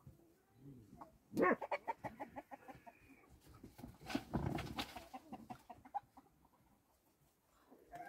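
Chickens clucking: a quick run of clucks starting about a second and a half in, then another loud call about four seconds in.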